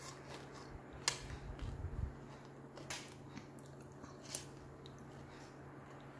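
A metal spoon and fork clicking and scraping against a plastic bowl while scooping up noodles: three sharp clicks spread a second or two apart, with a few soft low thuds between the first two.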